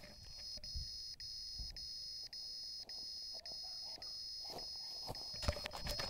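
A crashed FPV racing quadcopter's lost-model buzzer sounding a high, steady beep broken by a short gap about every half second. From about four and a half seconds in, footsteps and rustling in the dry straw come near as the pilot reaches the drone and picks it up.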